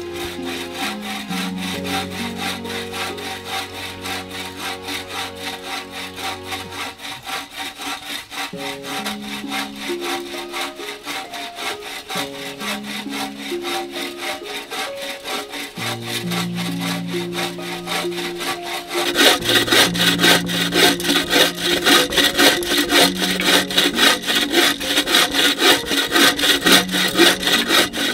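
Wood being sawn with steady, repeated back-and-forth strokes that get louder about two-thirds of the way through, over soft background music.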